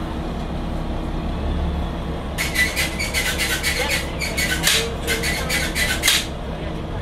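Volvo Olympian bus engine idling steadily while the bus stands still. Midway, a rapid run of sharp ticks, about five a second, lasts roughly four seconds and then stops.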